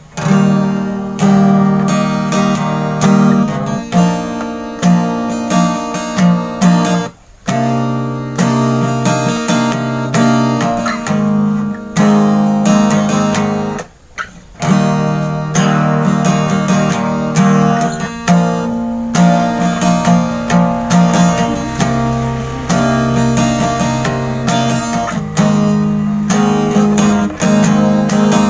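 Acoustic guitar strummed in chords, with two brief breaks, about a quarter and about halfway through.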